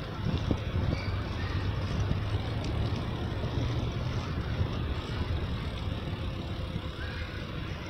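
Steady low rumble and hiss of wind buffeting the microphone while moving along the path, with no distinct events.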